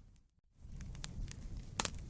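Fireplace wood fire crackling, with scattered sharp pops over a low rumble and one loud pop near the end. Just after the start the sound dips almost to nothing for a moment, then comes back.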